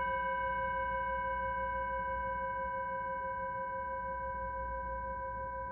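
Brass singing bowl ringing on after a single mallet strike, several clear tones sustained together and fading only slowly.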